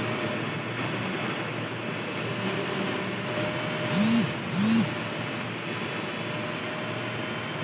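Oertli CataRhex 3 phacoemulsification machine running in phaco mode under foot-pedal control, giving a steady mechanical noise. Two short rising-and-falling tones come a little past halfway.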